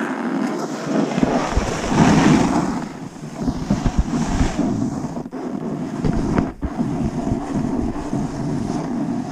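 Wind buffeting an action camera's microphone during a downhill run, over the hiss and scrape of a board or skis on groomed snow, which swells about two seconds in and again around four seconds in.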